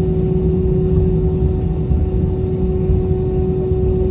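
Cabin noise inside an Airbus A321 on the ground after landing: a steady low rumble with a steady droning tone from the running engines.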